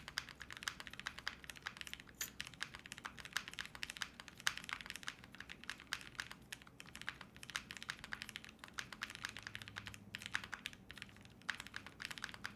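Fast typing on a TG67 V2 custom mechanical keyboard built with Hippo linear switches, a polycarbonate plate, mid-plate foam and PBT keycaps with a GMK spacebar: a quiet, dense run of keystroke clacks. The spacebar is a little sharp.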